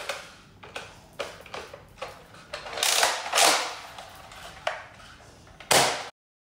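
Hard plastic clicks and clatter from a Nerf Rival Helios XVII-700 blaster as its magazine is loaded and the blaster is handled. There are two louder sliding strokes about three seconds in and a sharp, loud snap near the end.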